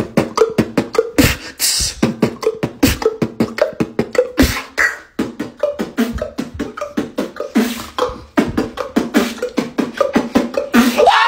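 Vocal beatboxing: a fast, rhythmic run of mouth-made percussive hits, several a second, over a steady hummed tone. A high, wavering vocal cry cuts in at the very end.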